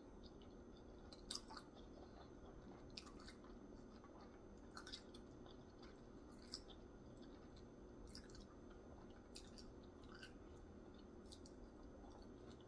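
Faint chewing and wet mouth sounds of a person eating, with soft clicks every second or two.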